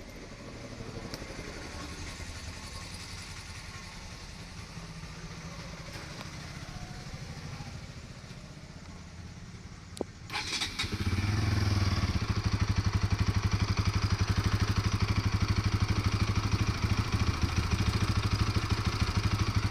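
Bajaj Pulsar NS200 single-cylinder engine running with a newly fitted timing-chain tensioner, after a loose tensioner had made the engine noisy. It runs steadily, and about ten seconds in it gets much louder, with a fast, even beat.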